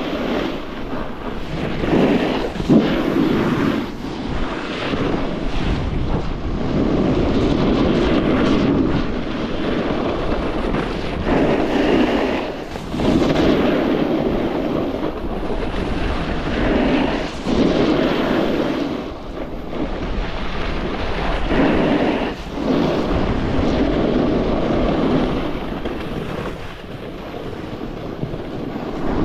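Snowboard edge scraping and hissing across groomed snow through a series of turns, rising and falling every few seconds, with wind rushing over the microphone.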